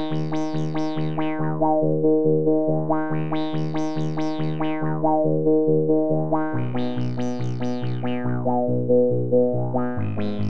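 Instrumental keyboard intro to a song: a bass note pulses steadily about twice a second under runs of notes that climb high and fall back again. The harmony shifts about six and a half seconds in and again near the end.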